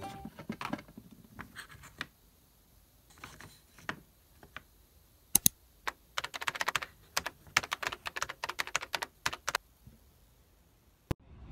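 Wooden cubes of a block desk calendar being lifted, turned and set back into their wooden stand: scattered light wooden clicks and knocks, with a quick run of clicks past the middle and one sharp click near the end.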